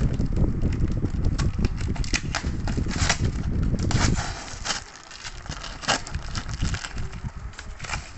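Plastic parcel wrap and packing tape crackling and tearing as a cardboard box is opened by hand, with irregular snaps and handling bumps that are heaviest in the first few seconds.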